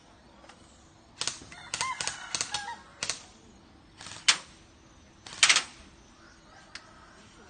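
Airsoft guns firing: scattered sharp cracks, with one shot, then a quick run of about five, then single shots a second or so apart, the last two the loudest.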